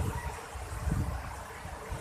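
Steady rushing of a large waterfall, with uneven low rumbling gusts of wind buffeting the microphone.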